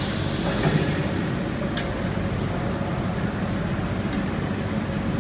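Steady low mechanical hum of running machinery, with a faint steady tone above it and a light click about two seconds in.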